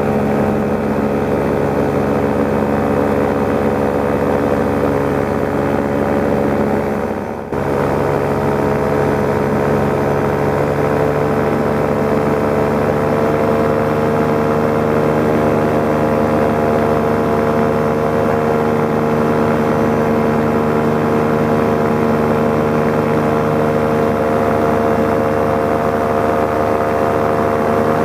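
Paramotor engine and propeller running steadily in flight, with a brief dip about seven seconds in and the pitch creeping slightly higher a few seconds later.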